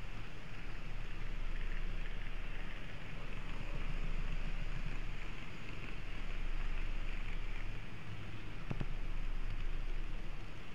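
N-scale model train running along the track, heard from a camera car riding on it: a steady rolling hiss with a low hum underneath, and a single sharp click near the end.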